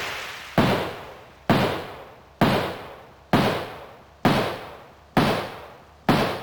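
Synthesized General MIDI 'Gunshot' sound effect fired seven times in a row, a little under a second apart, each a sharp bang that dies away, played as the notes of a rising scale.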